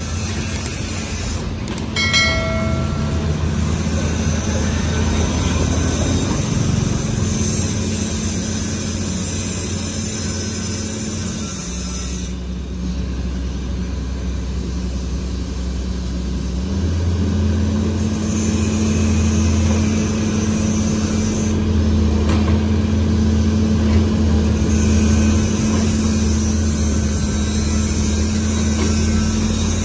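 Caterpillar 320C excavator's six-cylinder diesel engine running steadily while it digs. Its hum dips slightly in pitch near the middle, then rises again as the load comes back on. A brief high whine sounds about two seconds in.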